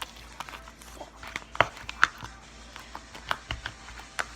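Slime being squished and poked by hand, giving irregular sharp clicks and pops, several a second.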